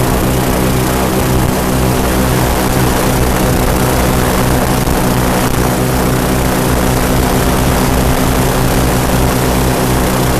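Twin-engine airboat running steadily, its engines and air propellers giving a loud, even note.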